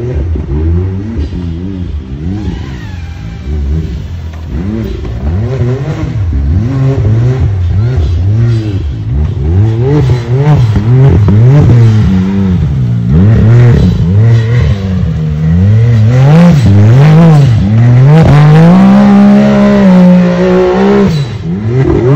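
Race UTV's engine revving up and down again and again as it works over the dirt course. Near the end it is held at high, steady revs on the hill climb.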